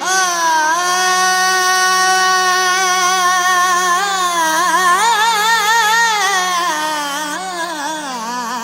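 A male Sufi folk singer holds one long high vowel for about four seconds, then sings quick wavering ornamental turns with no words, over a steady drone.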